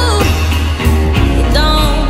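Background music: a song with a singing voice over a steady bass.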